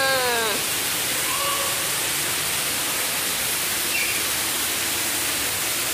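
Steady rushing noise like running water, from the aquarium tank's water circulation. The tail of an excited shout ends about half a second in.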